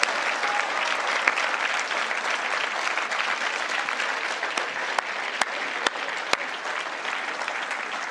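Large crowd applauding steadily, with a few sharp single claps standing out close by; it eases slightly near the end.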